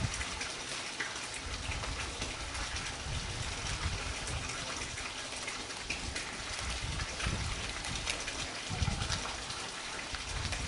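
Black plastic pond liner rustling and crinkling as it is pulled and tucked over a wooden bed frame, a continuous crackly rustle with many small crackles.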